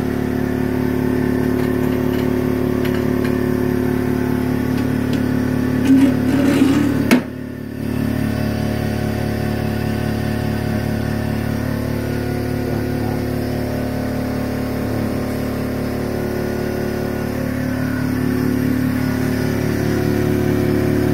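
Disco DSC141 wafer-processing machine running: a steady mechanical hum with a regular pulse. About six seconds in a louder rushing noise rises briefly, cuts off sharply, and the hum returns.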